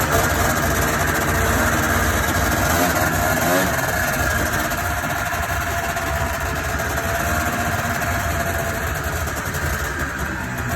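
Vintage Ski-Doo RV Blizzard snowmobile's two-stroke engine running steadily at a low, even speed.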